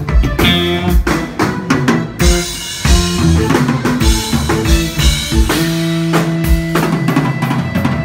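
Live rock band jamming on electric guitars, bass guitar and drum kit, with the drums to the fore.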